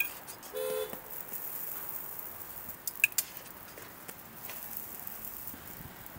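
Hotteok frying on a flat steel griddle, a steady sizzle, while a stainless steel hotteok press flattens the dough, with a couple of sharp metal clinks about three seconds in. A short beep-like toot sounds near the start.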